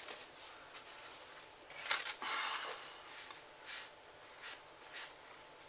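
Faint, scattered rustling and scraping of hands handling objects, a handful of short bursts with the clearest about two seconds in.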